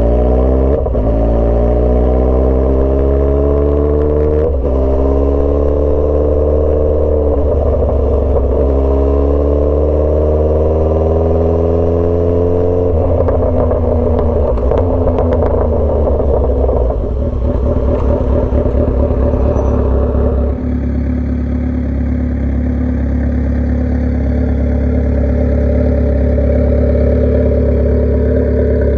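Motorcycle engine accelerating up through the gears: the pitch climbs for a few seconds and falls back at each of three shifts, then the engine runs at a steadier pitch.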